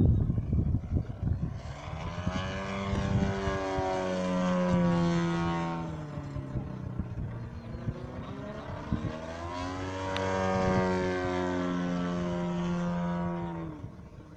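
Radio-controlled aerobatic model airplane's motor and propeller droning overhead in two passes, each swelling and then dropping in pitch as the plane draws away. Wind rumbles on the microphone at the start.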